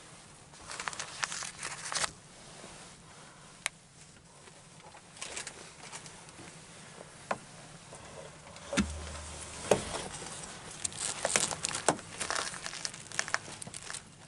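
Close rustling and crinkling of clothing and gear moving near the microphone, in irregular clusters of small clicks. There is a heavy low thump about nine seconds in, with a sharp knock just after it.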